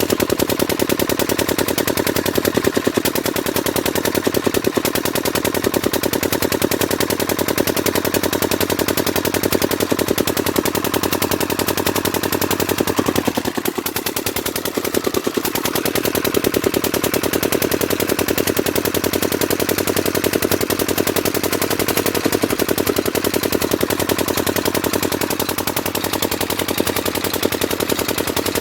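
Old Kirloskar diesel engine running steadily, its exhaust beating in a rapid, even rhythm. The beat softens briefly about halfway through.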